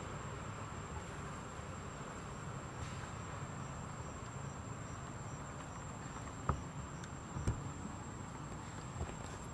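Insects drone steadily in a thin high tone, with a faint regular chirping pulse through the middle, over a low rumbling haze. Two dull thumps stand out a little past halfway, a second apart.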